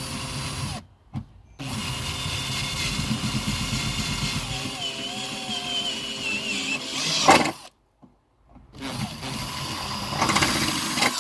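Electric drill running in three bursts, the middle one long, with its pitch wavering under load as it drills a hole. A sharp loud click comes as the long run stops.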